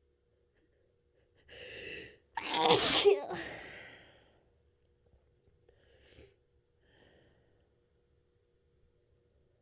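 A person's held-back sneeze finally let out: a drawn-in, voiced "ah" breath about one and a half seconds in, then a loud sneeze a moment later that trails off. Two faint sniffs follow.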